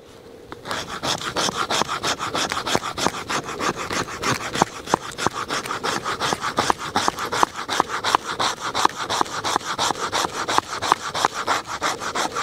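Sharpened spine of a Mora Garberg knife scraping a wooden stick in quick, short, repeated strokes, several a second, shaving off fine wood dust for tinder. The scraping starts about half a second in.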